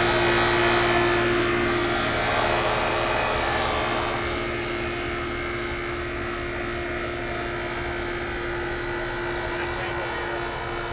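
Portable air compressor running steadily while it inflates tyres, a continuous motor drone at an even pitch.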